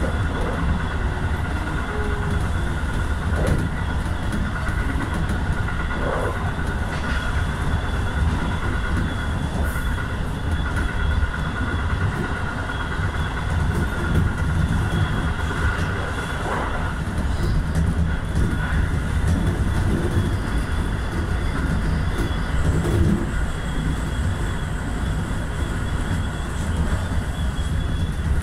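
Train running along the track, heard from inside the driver's cab: a steady low rumble of wheels on rail with faint constant high tones over it.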